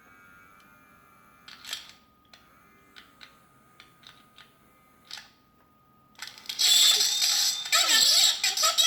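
A few small plastic clicks and taps from the toy bank's mechanism being handled. About six seconds in, the bank's needle-and-disc talking mechanism starts playing its voice message: loud, scratchy and garbled, because the needle is not pressing down properly on the disc.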